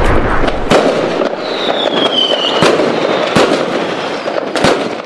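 Fireworks going off: a continuous crackle with several sharp bangs, and a whistle falling in pitch about two seconds in.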